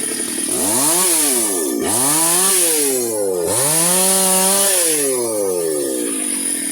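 Chainsaw engine throttled up to full revs and let back down three times, the pitch climbing and falling each time, as the chain cuts into a large sengon (Falcataria) log.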